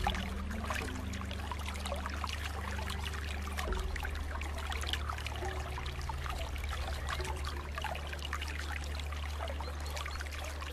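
Water trickling and bubbling, a steady crackle of small bubbles and splashes, with a steady low hum underneath, like an aquarium soundscape.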